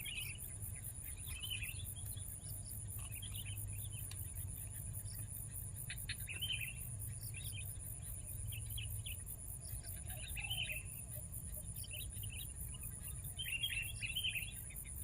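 A bird chirping in short clusters every second or so, over a steady, high-pitched insect drone that pulses rapidly.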